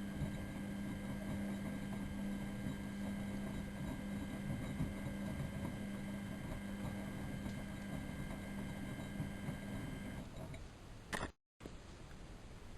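Miele Novotronic W914 washing machine running on a boil wash: a steady electric motor hum with a low tone and fainter high whines, which stops about ten seconds in and is followed by a single click.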